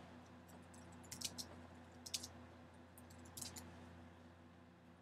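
Faint computer keyboard typing: a few short clusters of key clicks about a second apart, over a low steady hum.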